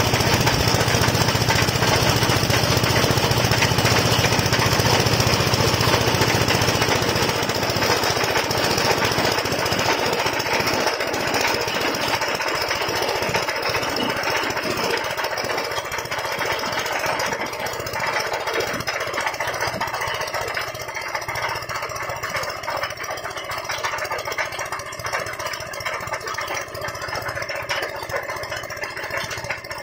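Semi-manual water-well drilling rig running, its engine driving the drill rod as it turns in the muddy borehole: a loud, steady mechanical noise that eases and grows quieter after about ten seconds.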